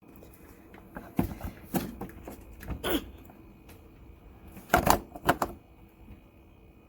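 A series of irregular sharp clicks and light knocks, several in quick succession about a second in, with the loudest ones around five seconds in.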